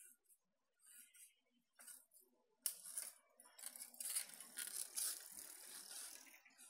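Crackling rustle of dry grass and leaves. It starts suddenly about two and a half seconds in and goes on for about four seconds, after a few faint scattered ticks.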